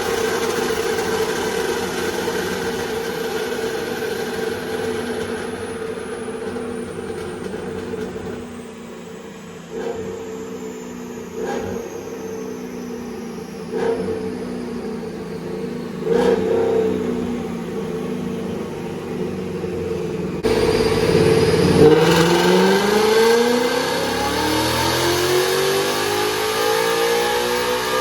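Ford Coyote 5.0 V8 with long-tube headers running hard on a chassis dyno, held at steady high revs for several seconds. After an edit, the pitch drops and then climbs steadily through a full-throttle pull.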